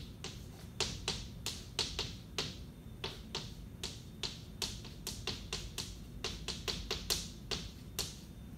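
Chalk writing on a blackboard: an uneven run of sharp taps and short strokes, two or three a second.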